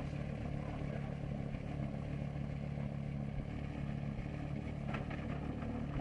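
Porsche Carrera GT's 5.7-litre V10 idling steadily, not revving.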